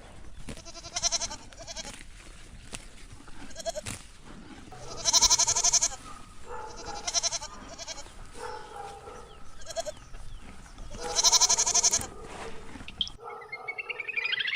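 Livestock bleating: a series of separate, quavering bleats, the loudest about five and eleven seconds in.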